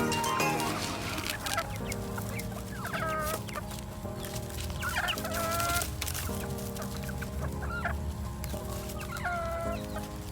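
Free-range chickens clucking and calling, a few drawn-out calls every second or two, over background music.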